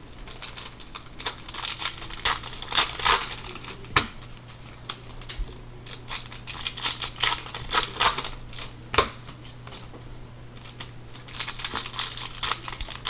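Foil wrappers of Bowman Chrome baseball card packs crinkling and tearing in the hands in irregular bursts, with cards being handled and a couple of sharp taps.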